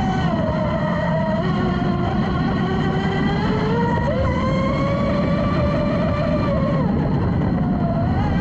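Brushless electric motor of a Pro Boat RC racing boat, heard from on board, running at speed. Its whine falls and rises with the throttle over the rush of water and spray, dipping about seven seconds in and climbing again near the end.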